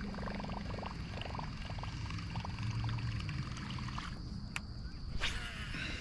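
Spinning reel being cranked to retrieve a topwater lure, a run of fast ticking from the reel gears, with water trickling and one sharp knock about five seconds in.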